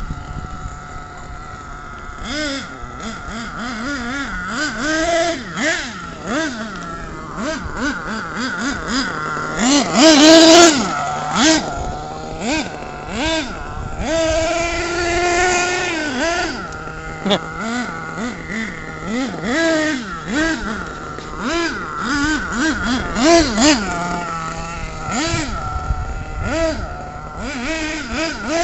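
Radio-controlled car's motor revving up and down over and over as it is driven in short bursts, its pitch rising and falling with the throttle. It is loudest about ten seconds in.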